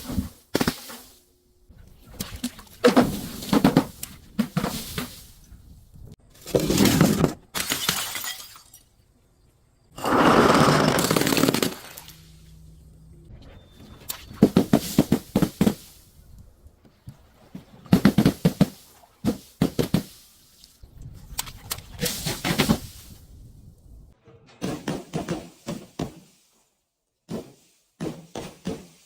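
Glass and other brittle objects being crushed and broken: a dozen or so separate bursts of crunching and shattering with short pauses between them. The longest burst comes about ten seconds in.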